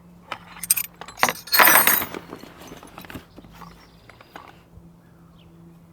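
Loose metal hand tools clinking together as they are handled and set down, with a loud rattling clatter about a second and a half in, then a few lighter clicks.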